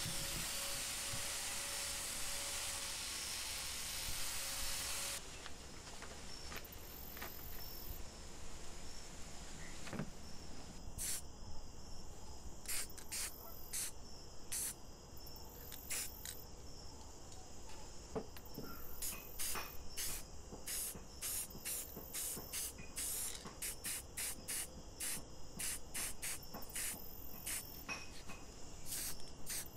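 A handheld rotary tool runs steadily for about the first five seconds and then stops. After that an aerosol spray-paint can hisses in many short bursts, coming faster toward the end.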